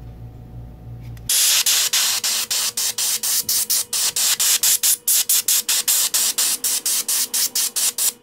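Airbrush spraying paint onto a wooden lure, a hiss of air that starts about a second in and comes in rapid short pulses, about five a second.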